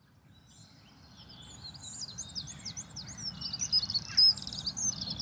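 Several birds singing, a dense run of quick chirps and warbling phrases over a low background rumble, fading in over the first couple of seconds.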